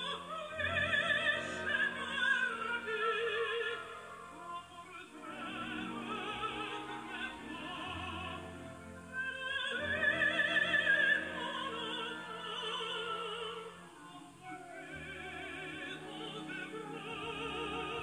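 Tannoy Cheviot loudspeakers playing an operatic recording: a singer with a strong vibrato over orchestral accompaniment, in phrases with short breaks.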